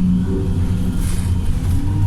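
Wright StreetLite single-deck bus engine running under a remap, with a steady low engine note that begins to rise near the end as it pulls away. A brief hiss comes about halfway through.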